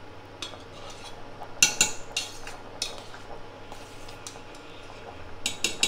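A metal spoon stirring rice in a stainless steel pot of boiling water, clinking against the pot's sides and rim. There are a few clinks about a second and a half in and a quick run of them near the end.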